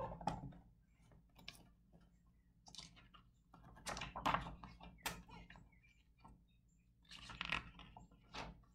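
Hardcover picture book being opened and its paper pages turned by hand: short rustles and soft knocks in several bursts, quiet overall.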